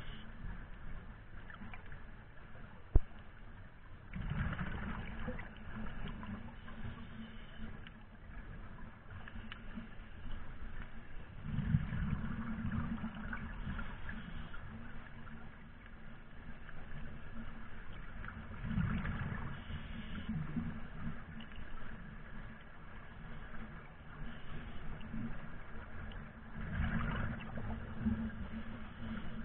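Underwater sound picked up by a camera in a waterproof housing: a low rumble and rush of water that swells louder every several seconds, with one sharp click about three seconds in.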